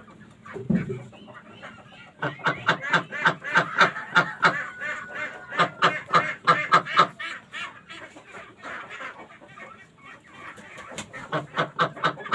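A flock of laying ducks quacking: a quick run of repeated calls from about two seconds in to about seven seconds, and another run near the end.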